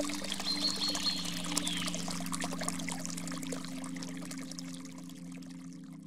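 Water splashing and trickling, thin waterfall streams falling onto rock and into a shallow pool, with a steady low hum underneath. The water sound slowly fades over the last couple of seconds.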